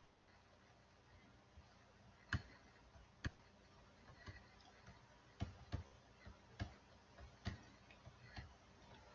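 Faint, scattered computer mouse clicks, about seven of them at irregular intervals, starting about two seconds in.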